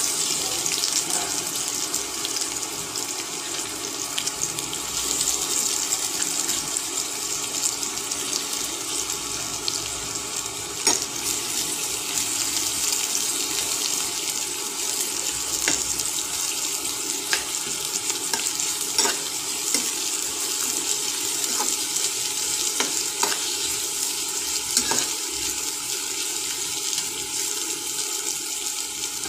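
Sliced onions sizzling in hot oil in a frying pan, a steady hiss that starts as they go into the oil, with a few sharp crackles along the way.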